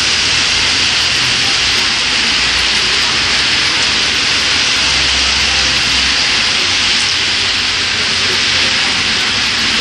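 Heavy rain pouring steadily onto pavement, a loud, even hiss.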